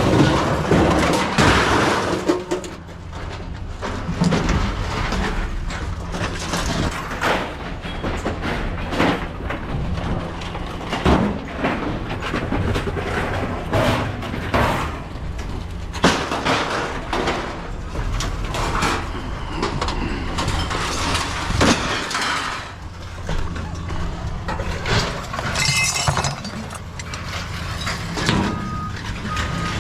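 Pieces of scrap metal clanging and crashing again and again as they are unloaded, over a steady low engine hum.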